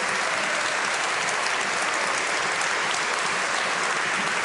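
Many people applauding: dense, steady clapping from a crowded chamber.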